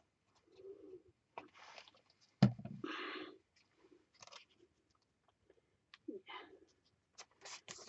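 Light handling noises of paper and craft materials on a table: scattered soft taps and rustles, with a sharper knock about two and a half seconds in followed by a brief rustle.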